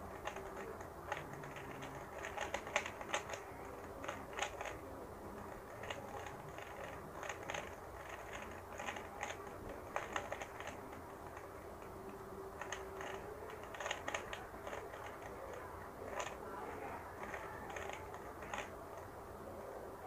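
Plastic layers of a stickerless 3x3 speed cube clicking as they are turned by hand, in quick runs of several turns with short pauses between them.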